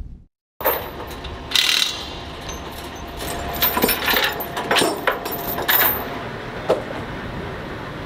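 Hand tools working on farm machinery: irregular metal clanks and clicks over outdoor background noise, starting after about half a second of silence.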